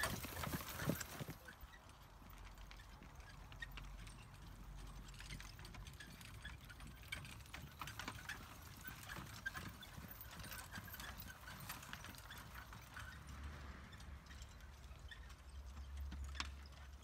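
Hoofbeats of a pair of carriage horses trotting over grass, clip-clopping; loudest in the first second or so as they pass close, then fainter as they move away.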